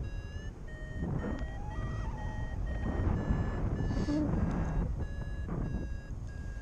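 Paragliding variometer beeping in a quick string of short tones, about two a second, with the pitch wavering slightly up and down: the climb tone of the glider rising in a thermal. Wind noise rumbles on the microphone underneath.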